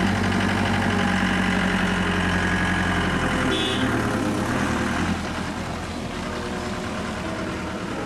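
Minibus engine running loudly as the bus pulls past at close range and drives away, dropping off about five seconds in.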